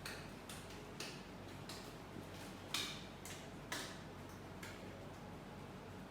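A series of sharp clicks, about two a second at uneven spacing, with a louder one near the three-second mark; they stop about three-quarters of the way through.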